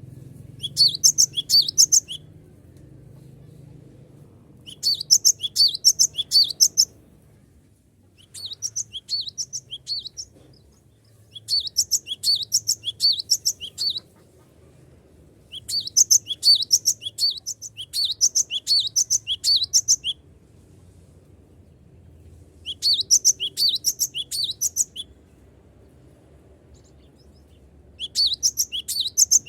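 Gelatik batu (cinereous tit) singing in fast bursts of rapid, high-pitched repeated notes, about seven bouts of one and a half to four seconds each with short pauses between them, over a faint low hum.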